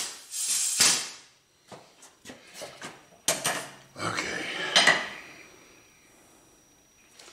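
Steel parts clinking and knocking on a shop press, as a compressor crankshaft, its bearing spacer and the steel press tubes are handled: a run of sharp metallic clinks, some with a short ring, dying away over the last two seconds.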